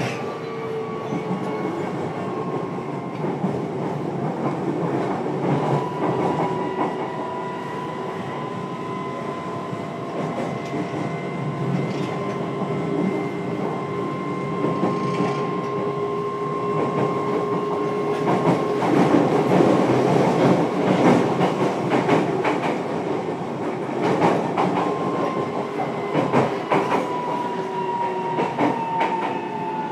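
Running sound inside a JR Kyushu 303 series electric train's motor car at speed: a steady traction-motor whine over a wheel-on-rail rumble, with bursts of clicks from the wheels over rail joints. The whine falls in pitch near the end as the train slows.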